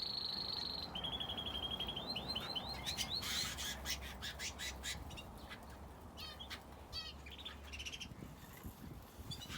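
Aviary cage birds, finches and a canary, singing: fast trilled rolls held for about a second each, then a run of short rising notes, then scattered chirps and clicks.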